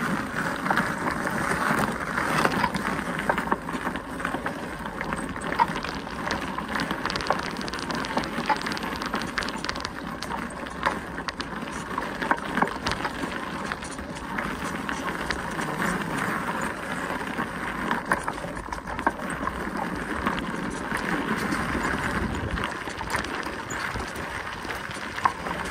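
Bicycle tyres rolling over a gravel path: a steady crunching crackle, full of small ticks from the stones.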